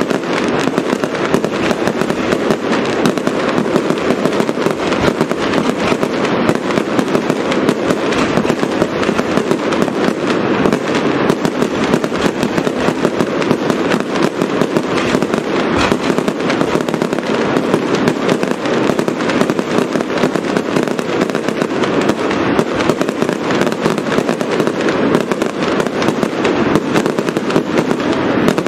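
Fireworks display: dense, unbroken crackling and popping of aerial shells and crackling stars, many reports a second with no let-up.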